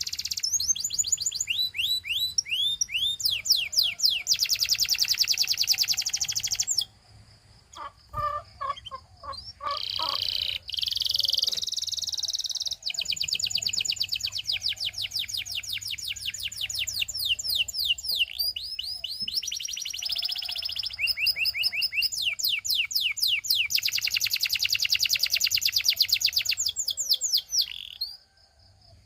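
Canary singing in long, fast trills of rapidly repeated high notes, phrase after phrase, with a brief break about seven seconds in and another near the end.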